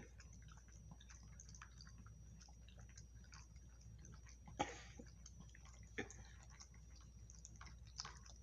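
A small dog eating and drinking at its bowl: faint, irregular chewing and lapping clicks, with a few louder knocks, the loudest about four and a half seconds in.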